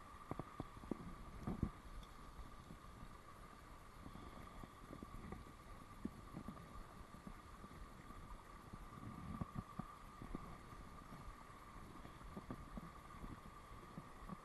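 Faint steady rush of stream water pouring over a low weir, with low rumbling and scattered soft knocks from the fly rod and line being handled close by.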